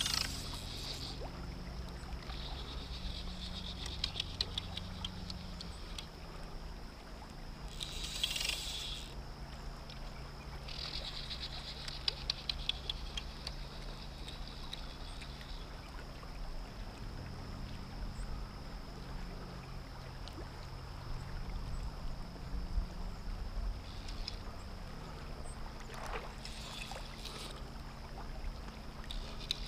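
Fly reel's click-pawl drag buzzing in a rapid run of clicks as a hooked trout pulls line off. The buzz comes in several separate runs, the longest lasting about five seconds, over the steady low rush of the river.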